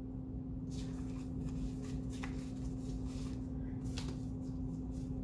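A deck of reading cards being shuffled and handled by hand: soft papery rustling with a few sharper card flicks, over a steady low hum.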